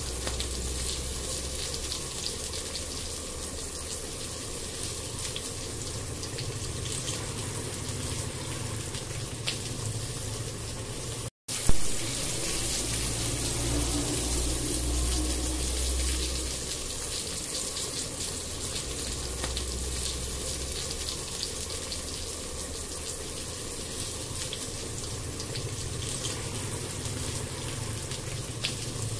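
Tomatoes and spices sizzling in oil in a frying pan while being stirred with a wooden spatula: a steady hiss with fine crackling over a low hum. About eleven seconds in, the sound breaks off for a moment and comes back with a sharp knock.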